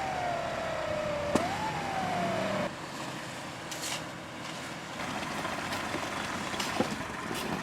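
Off-road 4x4 engine under load, its pitch sagging steadily, then picking up sharply with a click about a second and a half in and sagging again. After that comes a quieter, steadier running sound.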